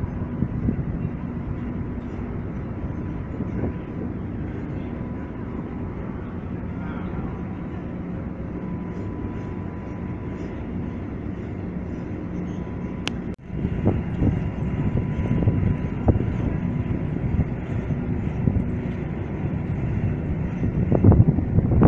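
Steady low mechanical rumble and hum of the old Niederfinow ship lift's machinery running, with a faint steady high tone. About 13 seconds in the sound breaks off for an instant and comes back louder and more uneven, loudest near the end.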